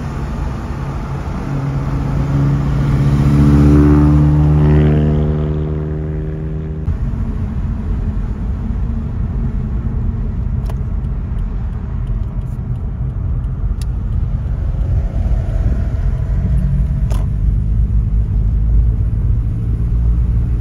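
Car engine pulling hard, its note climbing for several seconds. After a cut about seven seconds in comes the steady low drone of a car cruising, heard from inside the cabin, with a few sharp clicks.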